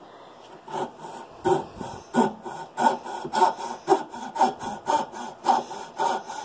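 Coping saw cutting through a pine wood block by hand, starting about a second in with even back-and-forth strokes, about two a second.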